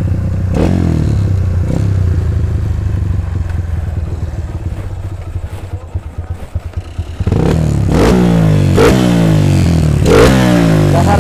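Kawasaki KLX150 supermoto's single-cylinder four-stroke engine running low and unevenly as the bike slows to a stop. At about seven seconds in it is revved hard in several throttle blips, the pitch falling back after each.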